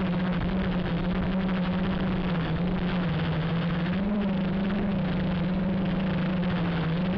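Q450 quadcopter's motors and propellers running in flight, a steady buzzing hum over rushing propeller noise, heard close up from a camera mounted on the frame. The pitch wavers slightly about four seconds in as the throttle shifts.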